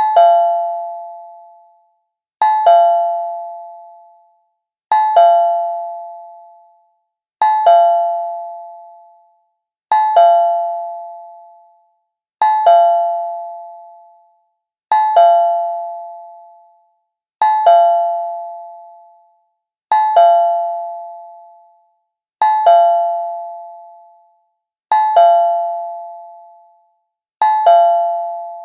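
Cartoon doorbell sound effect: a quick two-note chime, a higher note then a lower one, ringing out and fading. It repeats identically about every two and a half seconds, twelve times.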